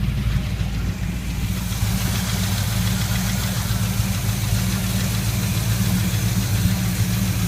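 Chevy 350 small-block V8 of a 1979 GMC K1500, warmed up and running steadily around idle, with the light ticking/tapping knock that only shows once the engine is warm. Readjusting the lifters has not cured it.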